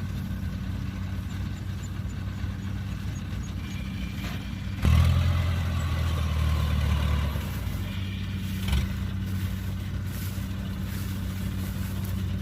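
Kubota combine harvester's diesel engine running steadily in the rice field. About five seconds in it suddenly gets louder for roughly two seconds before settling back, with a brief knock near the nine-second mark.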